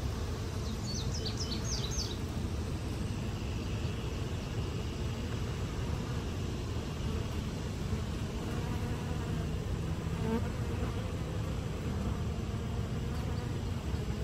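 Many bees buzzing steadily as they forage on blooming sumac flowers. A quick run of high chirps comes about a second in.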